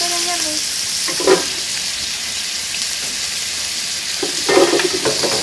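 Pork ribs frying in a pot, giving a steady sizzling hiss. A few short voice sounds break over it near the start, about a second in, and again near the end.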